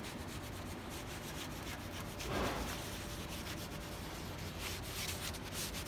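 A damp cloth rubbed quickly back and forth over a clamped, glued-up wooden panel, wiping off the wet glue squeeze-out from the joints.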